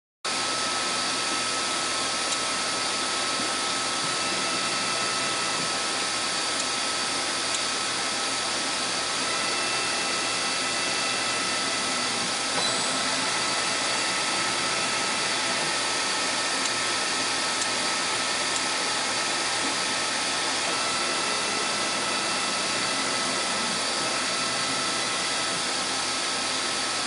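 Emco PC Turn 55 CNC lathe running steadily: a constant hiss with a thin high whine over it.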